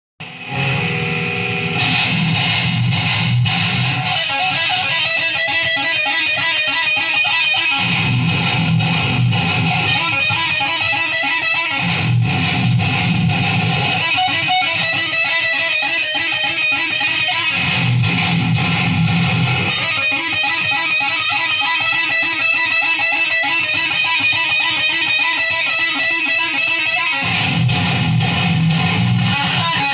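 Electric guitar music: a pattern that repeats about every four seconds, with low notes sounding for roughly half of each cycle.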